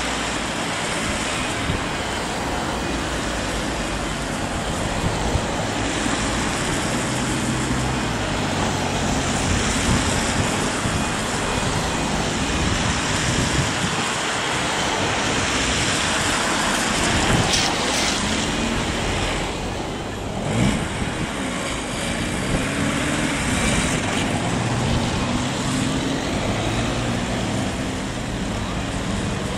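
Irish Rail 22000 Class diesel multiple unit approaching at low speed, its diesel engine hum showing through a steady rush of wind and road-traffic noise, a little stronger in the second half.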